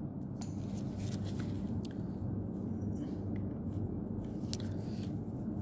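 Steady low workshop hum, with a few faint light clicks from a screwdriver and metal tools touching the engine's valve gear.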